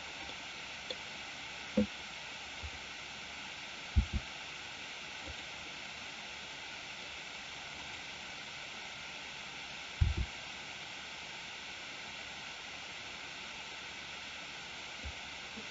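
Steady background hiss of a microphone with no one speaking, broken by a few soft low thumps: one about two seconds in, a quick pair about four seconds in and another pair about ten seconds in.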